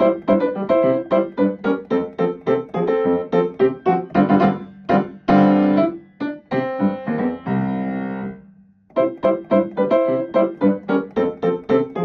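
Background piano music: a quick run of short notes that gives way to held chords near the middle, breaks off briefly about three-quarters through, then picks up the quick notes again.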